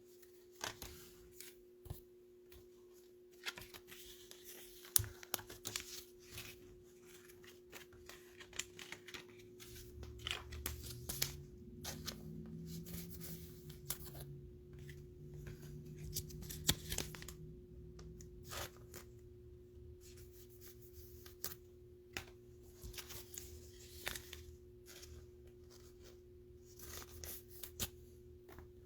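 Trading cards being handled and slid into plastic sleeves and rigid toploaders: scattered faint crinkles, rustles and light clicks.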